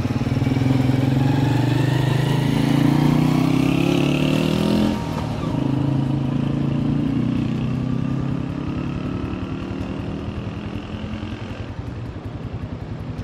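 Motorcycle engine pulling away, rising in pitch for about five seconds, then dropping sharply at a gear change. It then runs steadier and grows gradually quieter as it slows.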